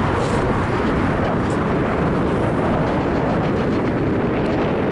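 Boeing 747's four jet engines at takeoff power during the takeoff roll: a loud, steady roar.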